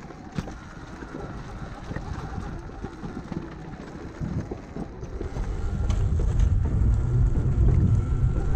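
Sur-Ron electric dirt bike riding along a trail, its motor giving a faint steady whine over tyre and drivetrain noise. Wind buffets the microphone, getting much louder a little past halfway as the bike picks up speed.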